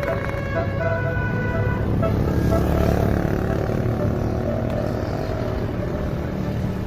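A bus's basuri (telolet) multi-tone horn plays a short run of notes that stops about two seconds in, over the rumble of the bus's engine. The engine grows louder around two to three seconds in, then runs on steadily.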